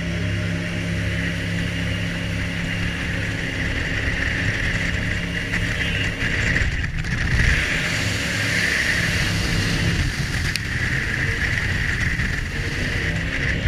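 Jet boat engine running steadily at speed along a river, with a constant rush of water and wind.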